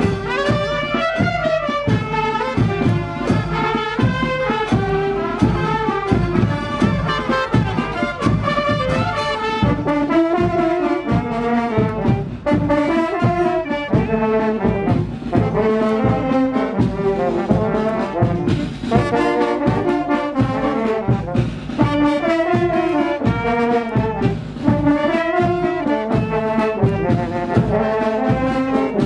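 Brass band music: trombones and trumpets playing a lively dance tune over a steady drum beat.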